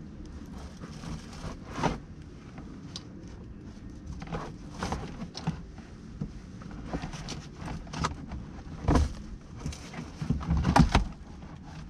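Scattered knocks, scrapes and rustling as a Mercedes W126's main floor carpet is worked loose by hand, with a few louder thumps spread through.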